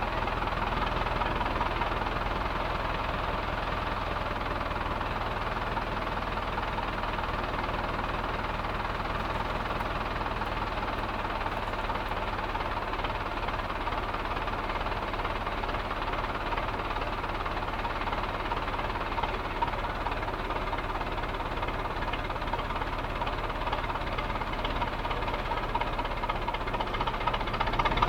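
An engine running steadily with a low hum and a continuous mechanical rattle, getting louder near the end.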